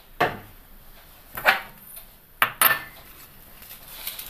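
Kitchen utensils and pans clinking and knocking, about four short strikes, the middle two close together.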